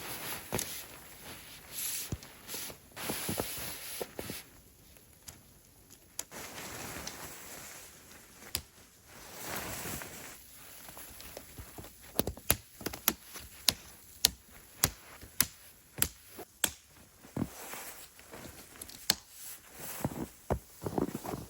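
A tent being pitched in snow: fabric rustling and handling noise, then, about halfway through, a quick run of sharp knocks, roughly two a second.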